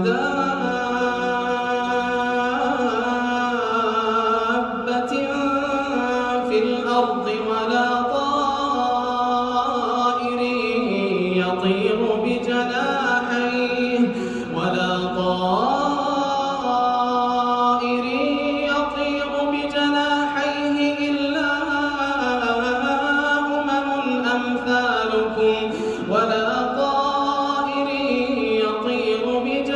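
Quran recitation: one voice chanting Arabic verses in the melodic tajweed style, with long held notes that slide and waver up and down in pitch.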